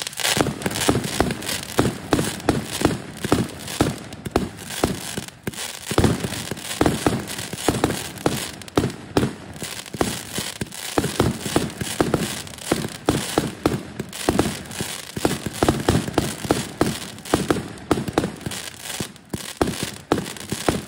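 Aerial repeater firework cake firing shot after shot without a pause: rapid launch thumps and bangs, several a second, with crackling star bursts overhead.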